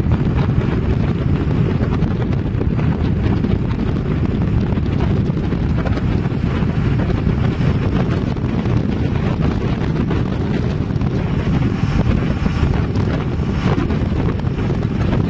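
Wind rumbling on the microphone over the noise of a car driving along a road, a steady low rush with no break.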